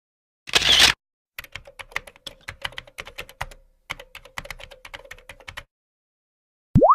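Keyboard typing: a run of rapid, irregular key clicks lasting about four seconds, with a brief pause midway. It is preceded by a short noisy burst about half a second in, and a quick rising glide starts just before the end.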